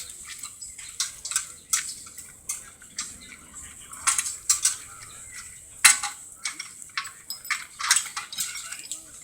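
Metal parts of a Ford Model T and hand tools clinking and knocking irregularly during hand assembly, a dozen or more sharp clanks with the loudest about six seconds in.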